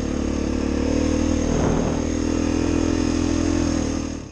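Beta 430RR four-stroke single-cylinder dirt bike engine running at a steady pitch, heard from on board the moving bike. The sound cuts off suddenly near the end.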